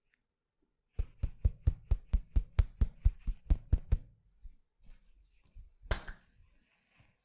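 Tok-sen wooden hammer tapping a wooden stick against the body in a quick run of about fourteen sharp, thudding knocks, four to five a second, then a few softer taps and one louder sharp knock near the end.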